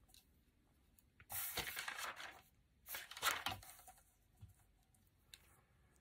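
A sheet of book paper being slid and shifted by hand on a plastic scoring board: two rustling swishes, each about a second long, then a couple of faint taps.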